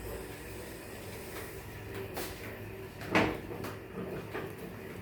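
Kitchen handling noises: a few light clicks and knocks, with one louder knock about three seconds in.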